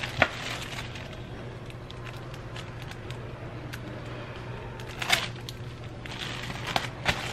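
Clear plastic bag rustling and crinkling as t-shirts are packed into it, with a few sharp taps and clicks, the loudest just after the start and another about five seconds in. A steady low hum runs underneath.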